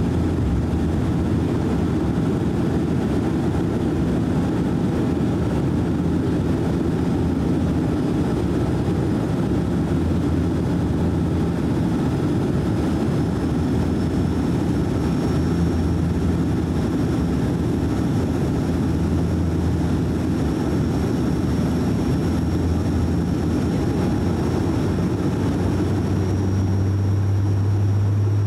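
Cabin drone of a DHC-8-400 (Q400) turboprop in flight, its twin Pratt & Whitney PW150A engines and six-blade propellers giving a steady, loud low hum with a faint high whine above it. Near the end the propeller hum grows louder and slightly higher in pitch.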